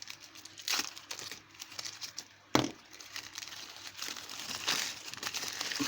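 Packaging crinkling and rustling as hands unwrap a lock, with one sharp knock about two and a half seconds in.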